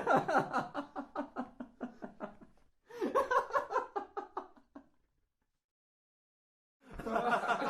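Human laughter as sound-effect clips: a fading burst of rapid "ha-ha" laughing, a second shorter burst, about two seconds of silence, then another laugh starting near the end.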